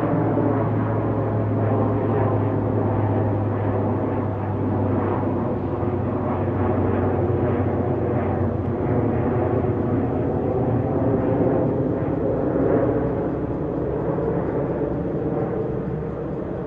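Twin-engine turboprop airliner passing low overhead, its engines and propellers droning steadily. A strong low hum in the drone eases off about halfway through.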